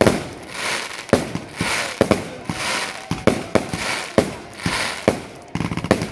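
Fireworks display with aerial bursts going off overhead: a rapid string of sharp bangs, about two a second, with crackling between them.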